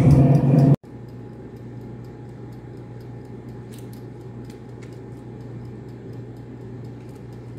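Air fryer fan running with a steady hum that cuts off abruptly under a second in; after that a much quieter steady hum with a few faint ticks.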